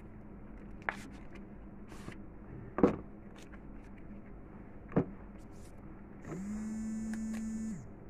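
Cardboard packaging of a vivo smartphone being handled as the inner boxes and lid are lifted out: a few light clicks and taps, the loudest about three seconds in. Near the end a steady buzz lasts about a second and a half.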